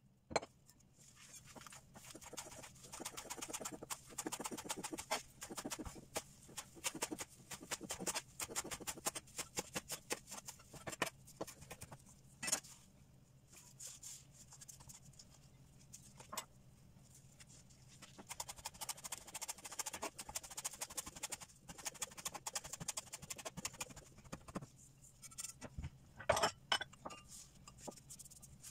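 Kitchen knife chopping fresh nettle and sorrel leaves on a bamboo cutting board: quick, uneven runs of knocks with short pauses, and a few sharper knocks about twelve seconds in and again near the end.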